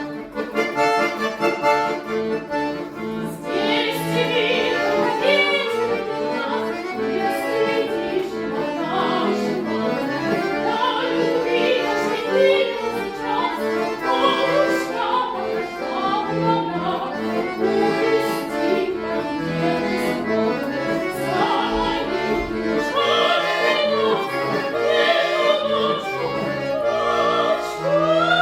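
Accordion playing an accompaniment in sustained chords and moving lines, with a classically trained singing voice over it, held notes wavering with vibrato. The voice comes in strongly near the end.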